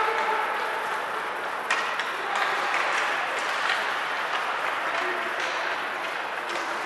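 Ice hockey arena ambience during play: a steady wash of crowd and distant voices, with a few sharp knocks from the play on the ice.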